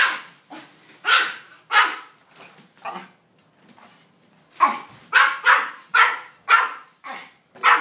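A Maltese barking sharply and repeatedly: four barks spread over the first three seconds, a short pause, then a quicker run of about eight barks. The dog is barking at a cardboard cutout of two dogs.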